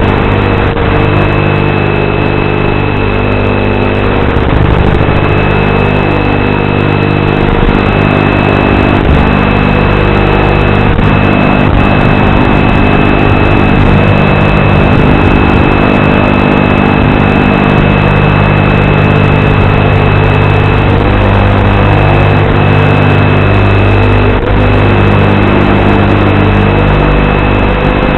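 ZMR-250 racing quadcopter's brushless motors and propellers buzzing loudly, the pitch wavering up and down as the throttle changes, with a thin steady high whine on top.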